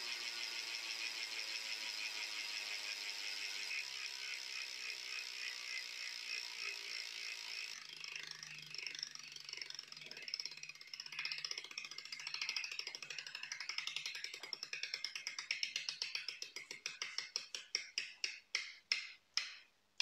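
DT Swiss 350 rear hub freewheeling as the wheel coasts down: its freehub clicks in a fast, even buzz that slows over the seconds into separate, widening clicks and stops near the end. It is picked up through the rear derailleur housing, so the sound carries close and stethoscope-like.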